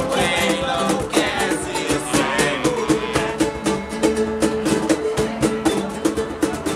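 Ukulele strummed fast in a steady rhythm, with voices singing over it during the first three seconds.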